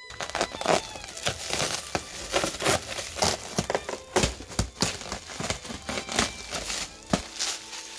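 Plastic stretch wrap on a pallet being pulled and torn off by hand: a run of irregular crinkling, crackling rips of the film.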